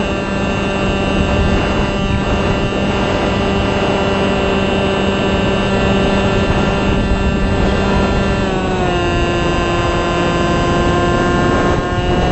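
Onboard sound of a small RC plane's motor and propeller whining steadily in flight, with rushing air noise; the whine drops in pitch about eight and a half seconds in as the throttle eases, then lifts slightly near the end.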